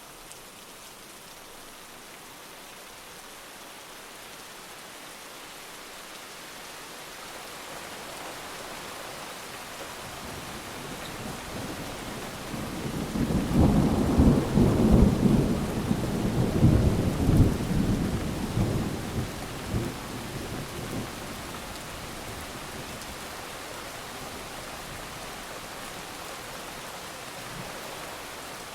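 Heavy rain falling steadily while a long roll of thunder builds up, rumbles loudest around the middle, and slowly fades back into the rain.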